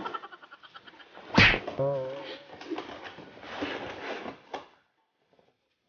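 A cardboard laptop box is handled and slid against its foam packing, with scraping and rustling and a sharp knock about a second and a half in. Just after the knock comes a short wavering pitched sound. The handling noise stops near the end.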